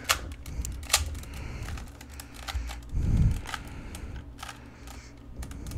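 Plastic Rubik's cube layers being turned by hand, a scattered run of quick clicks and rattles, with a louder low muffled sound about halfway through.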